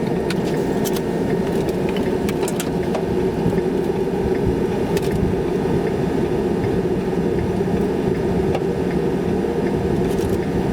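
Steady road and engine noise heard from inside a moving car's cabin, with a few faint clicks.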